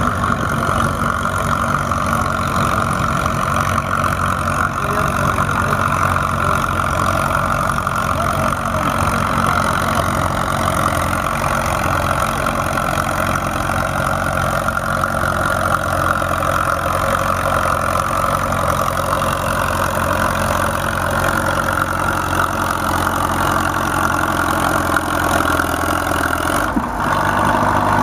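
Antique tractor engine running steadily under load while pulling a weight sled; its note changes about a second before the end.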